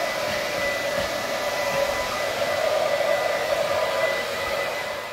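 Electric blow dryer running steadily on a puppy's fur: an even rush of air with a thin steady whine, easing off slightly near the end.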